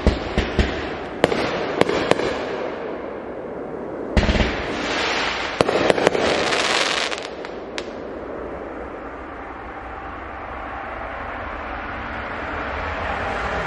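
Aerial fireworks going off: a quick run of sharp pops in the first two seconds, then a bang about four seconds in followed by about three seconds of crackling from a crackle-effect burst, with a few more pops and a last one near eight seconds. After that only steady background noise remains.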